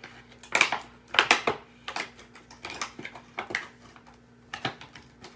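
Toy packaging being pulled and worked at by hand: irregular crinkling, crackling and small knocks, the loudest about half a second and just over a second in.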